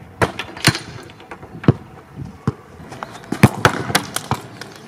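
A football kicked at an Olight M2R Pro Warrior flashlight clipped to a metal goal frame: a run of sharp, irregular knocks and clatters as the ball strikes and the metal flashlight hits the wall and bounces on asphalt.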